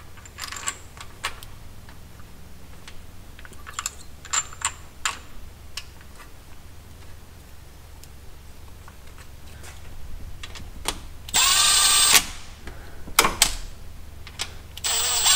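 Light metallic clinks as a timing chain is handled around its sprocket and guides, then a cordless ratchet whirs for just under a second about eleven seconds in, running down a bolt, and starts again near the end.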